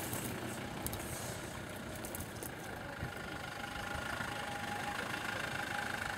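Off-road 4x4 engines running slowly at low revs, a steady engine hum that grows a little louder from about four seconds in.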